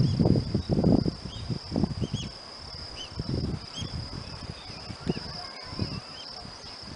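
Crickets and other autumn insects trilling steadily and high, with short chirps now and then. Wind buffets the microphone in low gusts, heaviest in the first second.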